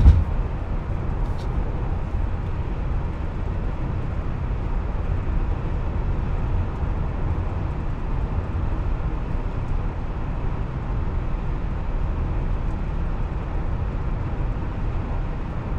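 Steady road and wind noise inside the cabin of a Tesla Model Y electric car cruising at about 130 km/h (80 mph) on a highway with no roof bars fitted: an even, low rumble with a fainter hiss above it.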